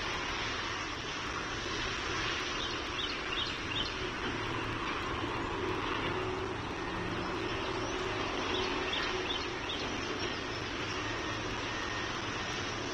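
Steady outdoor background noise with a faint engine drone that swells through the middle and fades. Two short runs of about four quick high chirps, a little before 3 seconds and again near 9 seconds.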